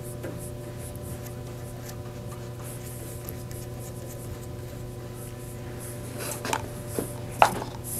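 A stir stick scraping and rubbing inside a paper cup of WEST System epoxy, with a few light sharp taps near the end. A steady low hum runs underneath.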